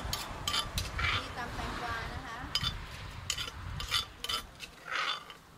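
Utensils and dishes clinking and scraping at irregular intervals, with faint chatter in the background.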